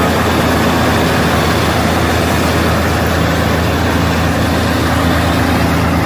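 M152 combine harvester working close up as it cuts standing wheat: a steady engine drone under the noise of its reel, cutter bar and threshing machinery, unchanging throughout.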